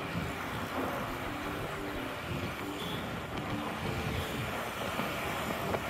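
Busy city road traffic: a steady mix of vehicles running and passing, with soft background music of short melodic notes underneath.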